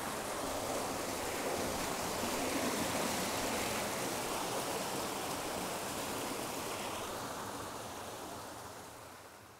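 Jungle creek water running with a steady rush, fading out over the last couple of seconds.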